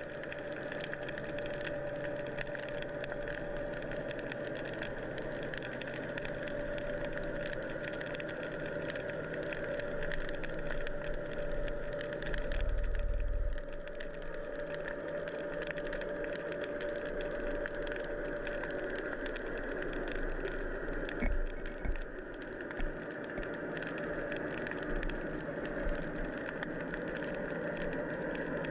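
Steady motor hum heard underwater: a constant mid-pitched tone over a crackling hiss, with a few low thuds about halfway through and again about two-thirds of the way in.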